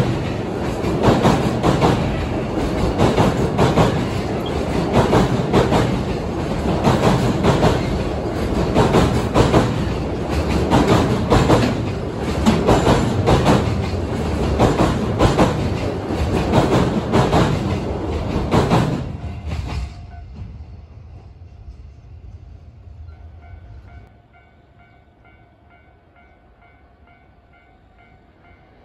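A train passing close by, its wheels clattering rapidly over the rail joints. The noise cuts off sharply about two-thirds of the way through as the train passes, then dies away.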